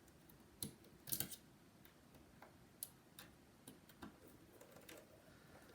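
Faint, irregular small clicks and taps of precision tools and tiny parts being handled around a phone's home button, with a short cluster of clicks a little over a second in.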